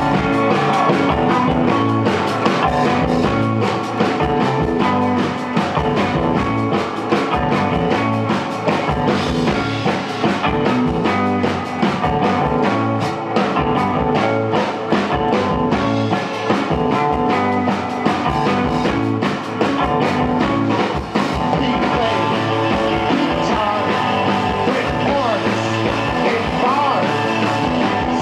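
Rock band playing live: electric guitar, bass and drum kit with a steady beat, and singing.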